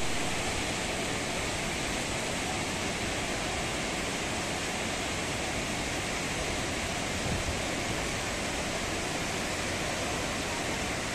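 Ézaro waterfall: a large cascade over granite cliffs, its falling water making a steady, unbroken rush.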